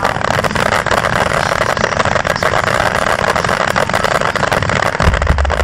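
Aerial fireworks shells bursting overhead in quick succession: a dense, continuous crackle over a low rumble of booms, the rumble growing deeper about five seconds in.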